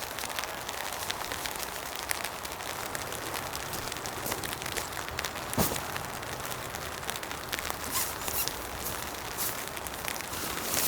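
Steady rain falling, a continuous hiss with many scattered drops tapping, and one louder knock a little past halfway.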